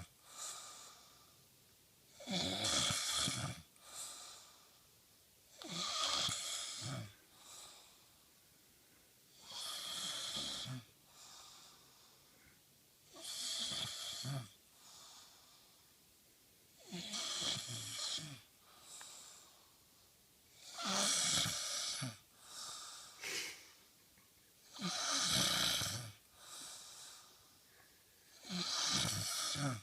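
Snoring in a steady rhythm: eight long snores about every four seconds, each followed by a shorter, quieter breath.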